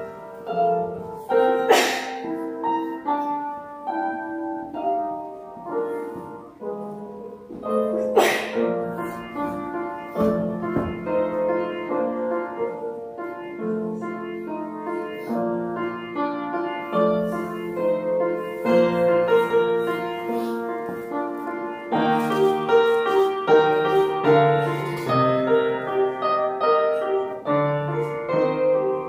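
Piano music playing continuously, note after note, with two sharp clicks, about two seconds in and about eight seconds in.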